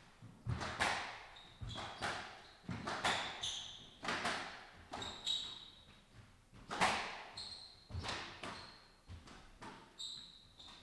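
Squash rally: a squash ball hit hard again and again, cracking off rackets and walls one or two times a second, each hit ringing out in the enclosed court. Short high squeaks of court shoes on the wooden floor come between the hits.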